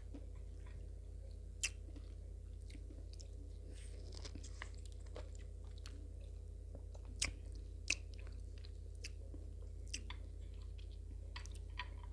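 Close-miked chewing of juicy orange segments: soft wet mouth clicks and smacks, with a few sharper clicks about a second and a half in and twice around seven to eight seconds in. A steady low hum runs underneath.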